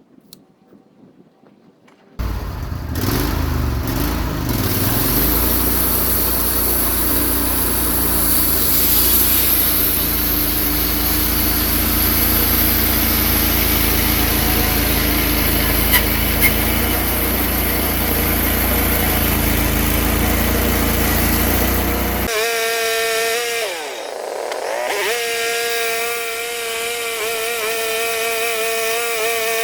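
Wood-Mizer LT15 Go band sawmill running and sawing through pine, a loud steady engine-and-blade noise that comes in abruptly a couple of seconds in. Near the end it changes to a pitched whine that dips in pitch briefly and comes back.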